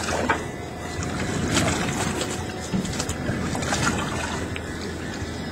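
Steady low rumble of wind and boat noise on deck, with scattered short knocks and clatter as a freshly landed striped bass and the landing net are handled.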